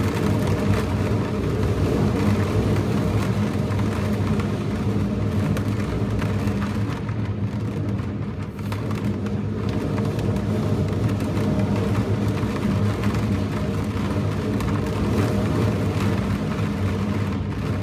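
Strong gale wind, gusting to storm force, rumbling steadily on the microphone, mixed with heavy surf breaking on the rocks below. There is a brief lull a little before the middle.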